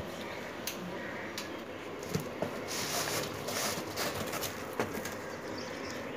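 Chicken chicks peeping inside a cardboard box, with rustling and a few knocks as the box and its plastic strapping are handled.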